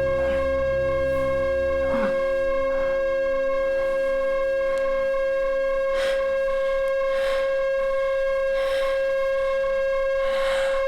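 Ambient film score: a loud, steady held tone with soft notes swelling in and out over it every second or two. A deep low drone beneath drops out about two seconds in.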